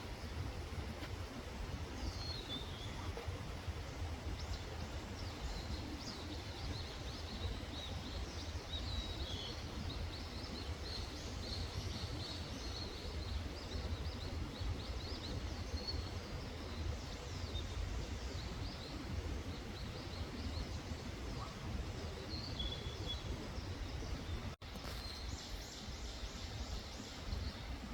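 Outdoor ambience of small birds chirping, with many short high chirps and little whistled calls over a steady low rumble. The sound cuts out for an instant about three-quarters of the way through.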